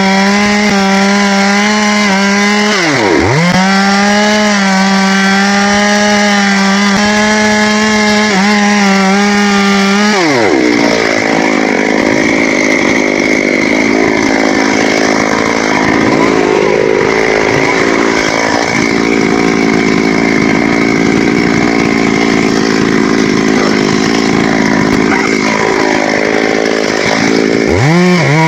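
Chainsaw running at high revs, let off and revved up again once about 3 seconds in. About 10 seconds in its pitch drops as it bites into the thambakam wood, and it cuts steadily under load for most of the rest before revving free again near the end.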